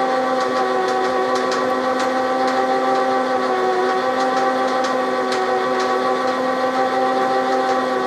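Covmac lathe running steadily, with a constant whine and scattered light ticks while it drills.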